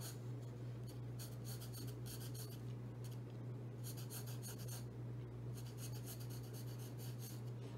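Graphite pencil lightly sketching on drawing paper: several short, soft scratching strokes in separate bursts, over a steady low hum.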